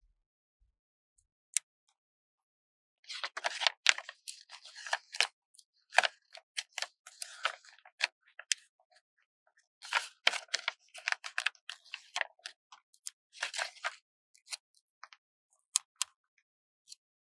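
Paper stickers being peeled off their backing sheet: crackly, papery rustling in two stretches, starting about three seconds in and again about ten seconds in, with sharp clicks and ticks scattered before, between and after.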